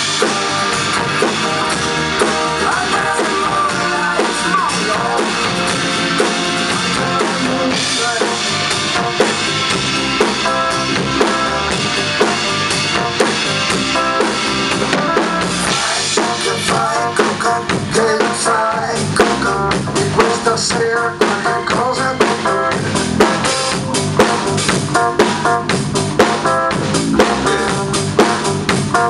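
Drum kit played live with sticks, featuring a Sempiternus snare drum: a continuous groove of snare, bass drum and cymbal strokes. It gets busier and more accented about halfway through.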